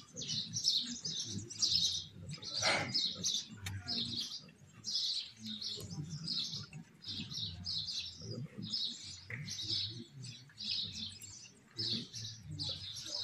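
Small birds chirping busily, short high chirps following one another with hardly a pause.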